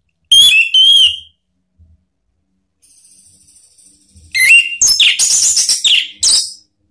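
Orange-headed thrush singing: two loud whistled phrases, a soft high twitter, then a loud, rapid run of varied notes near the end.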